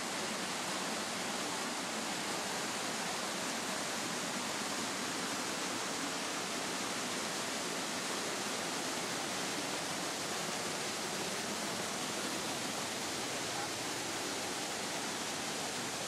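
Stream water spilling over rock ledges in small cascades, making a steady, even rush.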